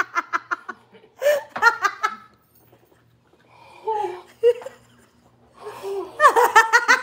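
A woman laughing in bursts of quick pulsed laughs, with a short quiet spell midway and a louder peal of laughter near the end.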